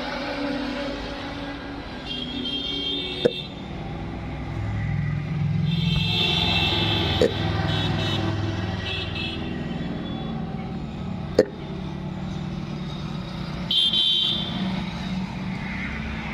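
Road traffic running steadily, with car horns honking several times. Three short, sharp clicks come about four seconds apart and stand out above the traffic.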